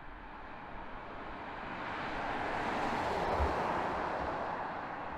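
BMW iX xDrive50 electric SUV passing at speed: tyre and wind noise swells to a peak about three and a half seconds in, then eases off, with no engine note.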